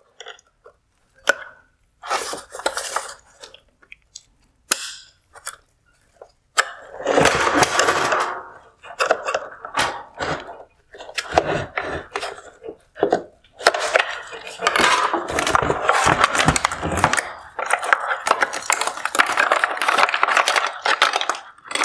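Plastic headlight housing and wiring-harness connectors being worked with a flathead screwdriver and by hand: scattered sharp clicks as the connector tabs are pried, then from about six seconds a near-continuous rattling, scraping and clattering of plastic as the harness is pulled loose and handled.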